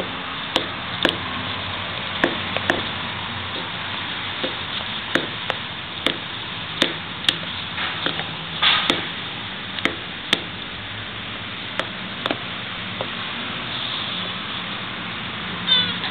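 Male Cyrenaica Greek tortoise butting the female's shell in courtship: sharp, irregular knocks of shell on shell, roughly one a second. Near the end, as he mounts her, a short squeaky call that glides down.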